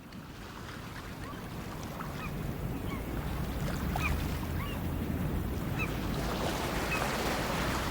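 Huawei P20 Pro nature-sound alarm tone: a rushing water or surf sound that slowly grows louder, with scattered short bird chirps over it.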